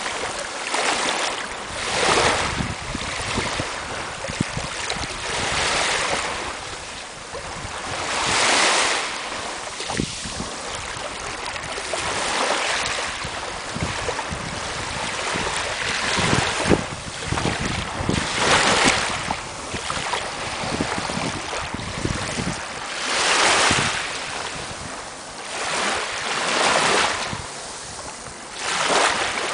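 Small waves lapping and washing in over sand at the water's edge, each wash a swell of hiss that comes and goes every few seconds, with wind rumbling on the microphone.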